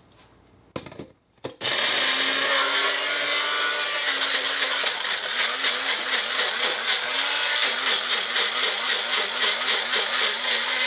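Countertop blender puréeing chopped watermelon. A few clicks, then the motor starts about a second and a half in and runs steadily. In the second half its hum wavers up and down about twice a second.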